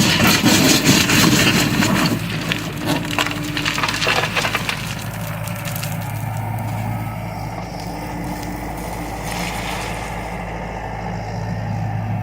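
Wood cracking, splintering and crunching as a John Deere excavator tears into a house, dense for the first five seconds or so. After that the excavator's engine keeps running steadily.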